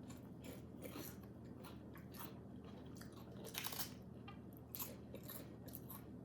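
Biting into and chewing a thin, crisp wafer cookie: faint, irregular crunching crackles.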